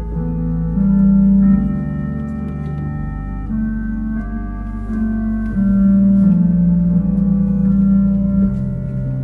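Church organ playing slow, held chords over a deep sustained bass note, the chords moving every second or so.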